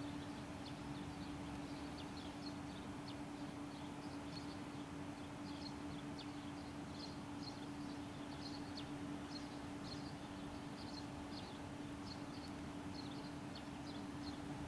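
Steady low hum from an ÖBB Cityjet electric multiple unit standing at the platform, with small birds chirping over it in quick, irregular short notes.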